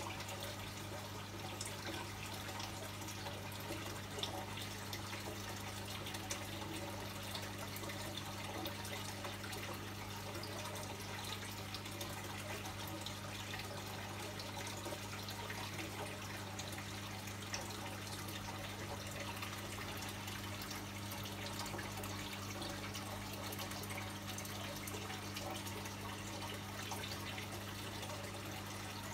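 Aquarium water bubbling and trickling from the tank's aeration and filtration, steady, with a small patter of drips, over a steady low hum from a pump.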